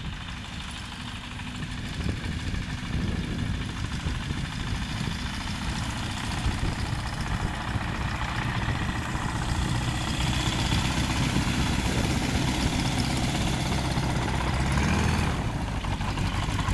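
Single-engine ultralight aircraft's propeller engine running as the plane taxis in across the grass, growing louder as it nears.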